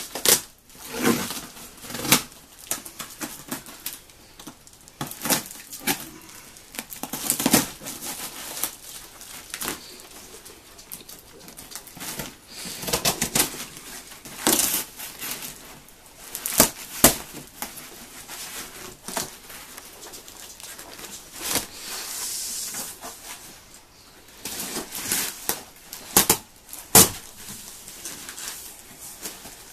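Packing tape being ripped and peeled off a large cardboard box, the cardboard tearing and crackling in irregular sharp bursts as the flaps are pulled open.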